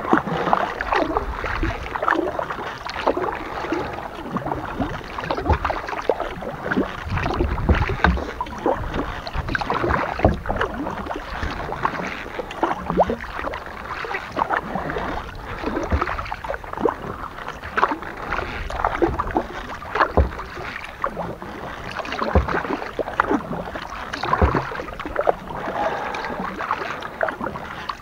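Kayak paddling: the paddle blades dip and splash in the water over and over at an uneven pace, with drips and small watery knocks between strokes.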